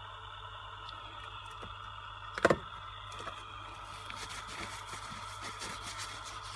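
A steady electrical hum, with one sharp click about two and a half seconds in and a run of lighter clicks and ticks after it.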